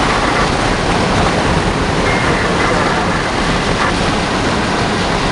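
Hurricane-force wind and rain blowing steadily, a loud, even rushing noise.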